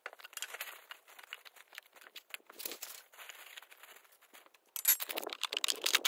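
Plastic and foam construction scraps being picked up and tossed by hand: irregular rustling, crinkling and light clattering, louder and denser in the last second.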